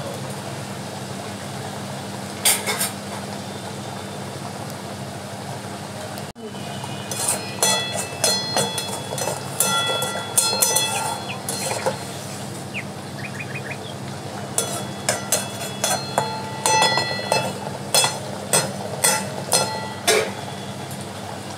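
Mustard gravy simmering in a metal kadai, bubbling and spattering, with a steady low hum underneath. From about seven seconds in come runs of sharp clicks and pops against the pan, some with a short metallic ring.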